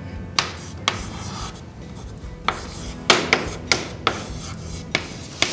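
Chalk writing on a blackboard: scratching with irregular sharp taps as the chalk strikes and drags across the board.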